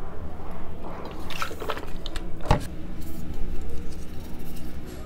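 Drinking gulps from a bottle, then one sharp knock about two and a half seconds in as the bottle is set down on the table, followed by light handling of a drink can.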